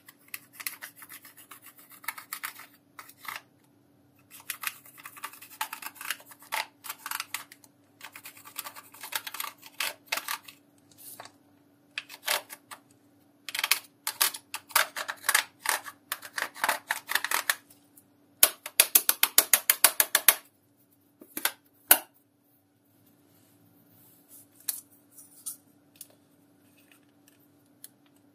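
Pressed powder makeup being scraped and crumbled out of a plastic palette with a pointed tool: bursts of fast scratching and crunching with short pauses between, and a quick, regular run of sharp clicks about two-thirds of the way through.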